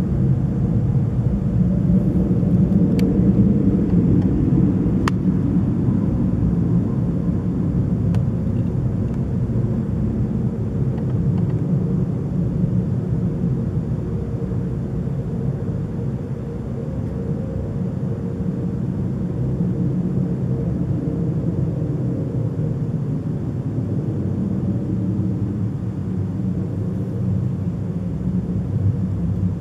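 A steady low droning rumble with faint humming tones in it, slowly swelling and easing: the unexplained noise heard in the middle of the night.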